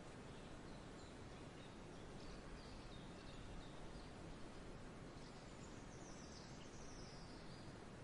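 Faint forest ambience: a steady low hiss with distant birds chirping now and then, and a few short descending calls past the middle.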